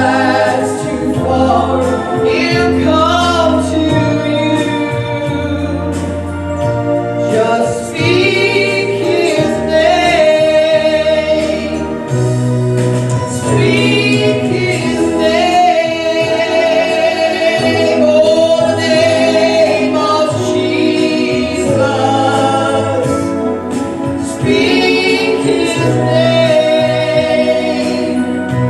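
Gospel music with choir singing over a steady bass line.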